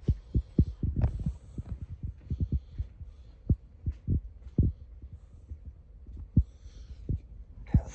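Irregular low thuds, in quick clusters at times and single now and then, over a faint low hum; the strongest thud comes about six and a half seconds in.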